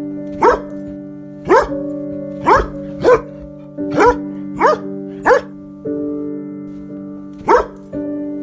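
A dog barking, eight short sharp barks mostly about a second apart with a pause near the end, over background music of steady sustained chords.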